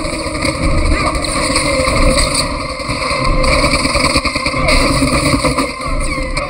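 Loud, dense action-film sound mix: continuous rumbling noise with layered effects, steady throughout.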